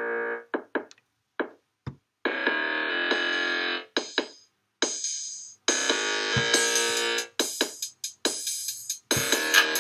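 Electronic jam on a Novation Circuit groovebox: held synth chords of a second or two start and stop abruptly, with short stabs and drum-machine hits between them that grow busier near the end. Recorded through a computer's built-in microphone, so the sound is poor.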